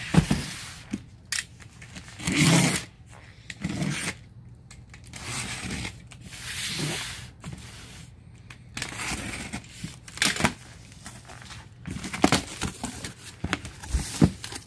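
A cardboard shipping box set down on a table with a thump, then its packing tape slit with a box cutter and the flaps pulled open: a run of tearing, scraping and rubbing cardboard noises, with a few knocks near the end.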